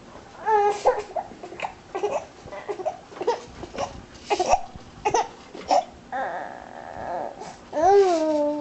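A baby vocalising: a string of short high-pitched babbling sounds and squeals, then a longer, louder whiny cry near the end.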